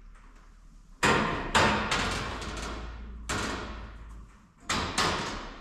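About six sharp knocks or clanks, the first about a second in and the last two close together near the end, each trailing off slowly in a ringing echo.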